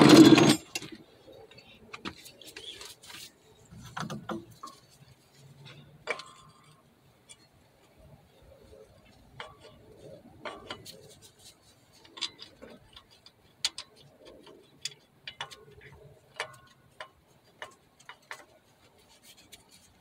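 Hand tools and the new accessory-belt tensioner clicking and tapping against metal as it is fitted to the engine, in sparse, irregular clicks. A single loud knock comes right at the start.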